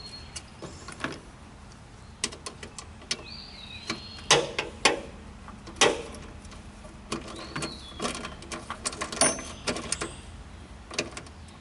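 Irregular sharp metallic clicks and taps of a wrench working a nut tight on a lawn tractor's starter solenoid terminal, some of them in quick little runs. A bird chirps twice in the background.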